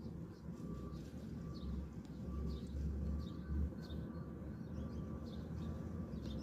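Sparrows chirping: a run of short, high chirps repeated every half second or so, a fledgling begging its parent for food, over a steady low rumble.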